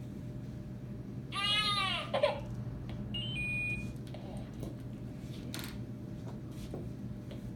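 Baby fussing: one short, high-pitched cry about a second in, rising and falling in pitch, the loudest sound here. It is followed near the middle by a brief steady electronic beep.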